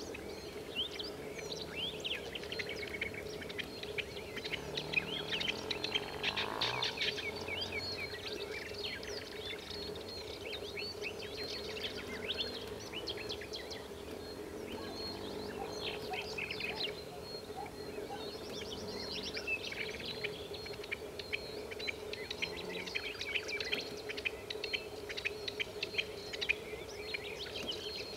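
Rock partridges calling: a dense, continuous run of quick, repeated chattering notes, over a steady low hum.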